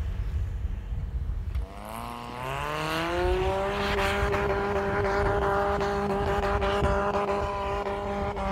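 Swapped-in BMW M42 1.8-litre inline-four in a Suzuki Sidekick: a low rumble, then about two seconds in the revs climb and hold steady at high revs as the vehicle pushes through deep snow.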